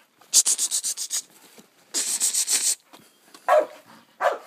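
A dog panting hard in quick breaths, then barking twice near the end.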